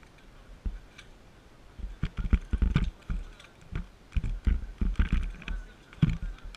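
Irregular muffled knocks and bumps with a few sharper clicks, sparse at first and coming thick and fast from about two seconds in; no engine running.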